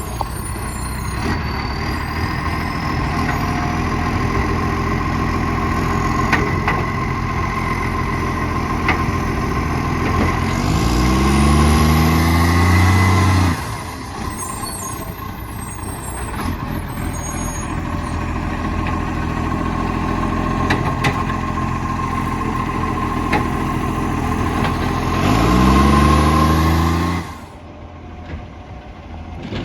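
Garbage truck's diesel engine running with an exhaust leak. It revs up twice, about eleven seconds in and again near the end, each time the note climbing and growing louder before falling back.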